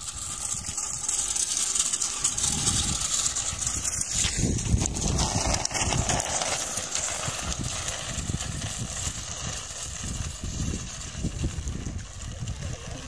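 Wind buffeting the microphone, with a gusty, uneven rumble and a steady hiss.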